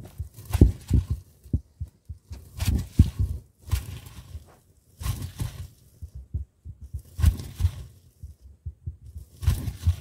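Large grinding stone rocked and rolled over a stone slab, crushing dried pomegranate seeds: a run of low, heavy thuds and rumbles with a gritty crunch, coming unevenly every second or so with short pauses.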